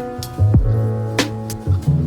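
Background music: a beat-driven track with bass, drum hits and sustained pitched notes.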